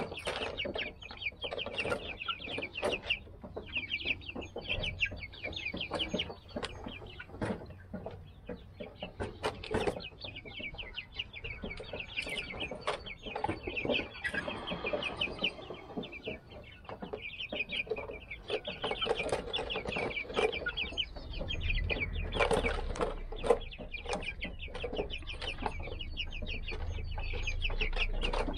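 A flock of 55-day-old Silver Laced Wyandotte chickens clucking and peeping in quick, rattling trills, call after call all the way through.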